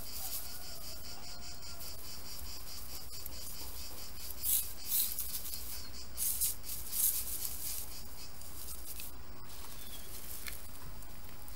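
Steady high-pitched chirring of insects. Around the middle come a few short rustles of straw mulch as hands press a seedling into the bed.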